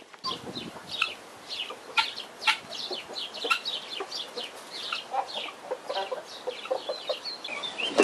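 Farmyard poultry calling: many short, sharp clucks and chirps from several birds, overlapping in a busy run, with a few louder calls in the first half.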